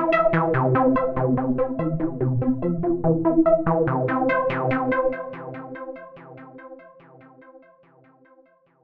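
Synthwave instrumental: pulsing synthesizer notes in a steady rhythm over a bass line. The bass drops out about five seconds in and the music fades out near the end.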